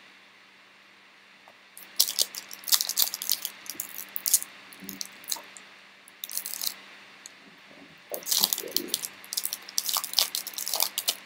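Foil trading-card pack being torn open and its wrapper crinkled by hand, crackling in several spells starting about two seconds in.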